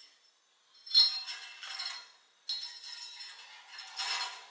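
Handling noise at a workbench: small metal parts and wire clinking and rustling as they are picked up. It comes in two stretches, the first starting sharply about a second in and the second at about two and a half seconds.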